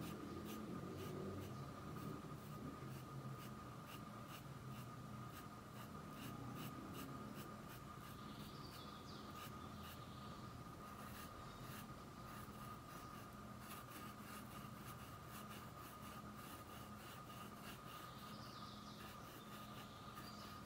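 Faint, irregular scratching of a fine paintbrush stroking paint onto textured cloth, over a steady faint electrical hum.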